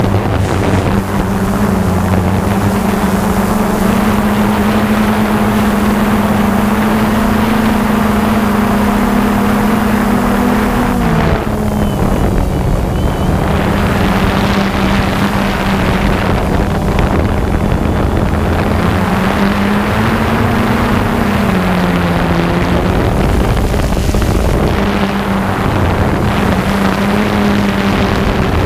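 Multirotor drone's electric motors and propellers whining steadily, heard from the camera carried on it, with wind noise on the microphone. Twice the motor pitch sags briefly and comes back up.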